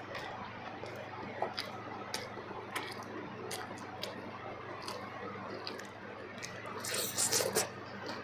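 A person chewing soft food close to the microphone: wet, squishy mouth sounds with scattered sharp clicks, and a louder, noisier stretch about seven seconds in.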